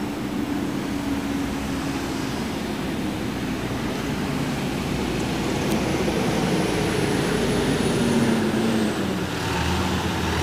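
Fire department aerial ladder truck coming up the street, its engine running and growing louder as it nears. A low drawn-out tone slowly falls in pitch, dropping most near the end.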